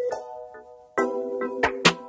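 Background music: a tune of pitched notes with sharp percussive hits.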